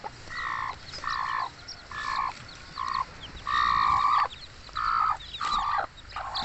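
Native hen, broody with newly hatched chicks, giving about seven short calls as she is handled and lifted off her nest, the longest a little past the middle. Her chicks peep high and thin in between.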